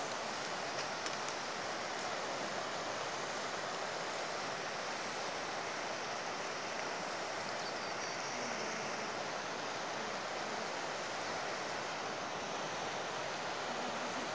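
Steady rushing of a swollen, muddy river in flood, an even noise with no breaks.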